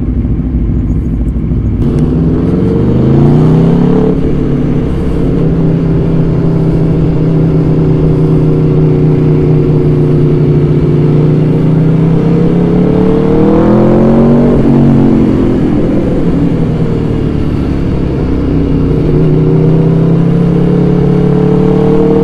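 Aprilia RSV4 RF's V4 engine with a carbon Akrapovic slip-on exhaust, heard from the rider's seat while the bike is ridden along. The revs climb about two seconds in and then hold steady, climb again towards the middle before dropping suddenly, and rise once more near the end.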